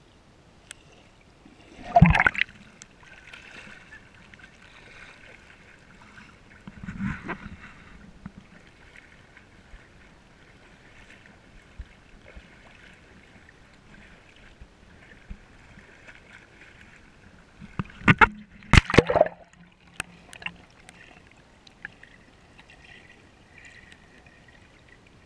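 Water sloshing and gurgling around an action camera held underwater, with a steady faint hiss and loud sudden splashes or knocks about two seconds in, again around seven seconds, and in a quick cluster at about eighteen to nineteen seconds.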